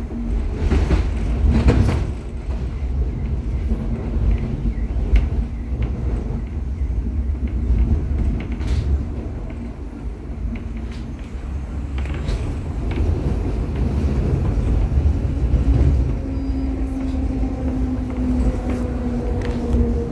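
Interior of an H5 HÉV suburban electric train: a steady low rumble of the car running on the track, broken by a few sharp knocks. In the last few seconds a steady whine with a slight downward glide comes in as the train slows into a station.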